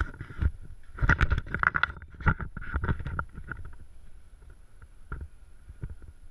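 Footsteps in loose sand mixed with the rustle and knocks of a hand-held camera being carried and then set down. It is busiest from about one to three and a half seconds in, then only a few single knocks, over a faint steady high tone.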